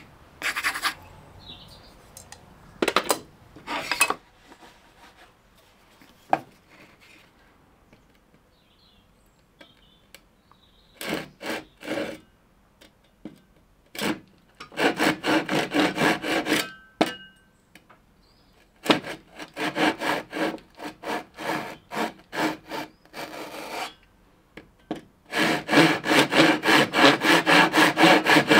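Hand saw cutting through a plywood board in runs of quick back-and-forth strokes, about four a second, with pauses between runs; the last run, near the end, is the longest and loudest.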